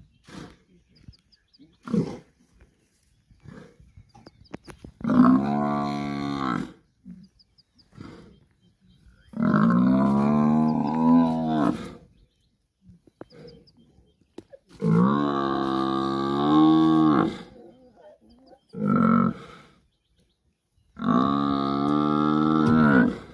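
Cape buffalo bull bellowing in distress while lions hold it down on its back: four long, low calls a few seconds apart and one short one.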